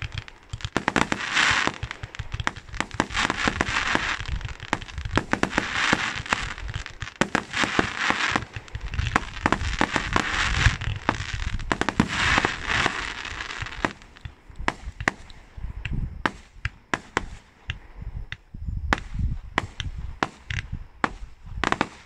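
Fireworks going off in rapid succession: dense popping and crackling bursts over a hiss, thinning after about 14 seconds to separate sharp bangs.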